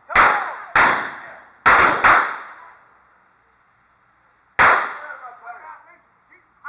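Revolvers firing blanks in a mock gunfight: five sharp shots with an echoing tail after each, four of them within the first two seconds and the last about four and a half seconds in.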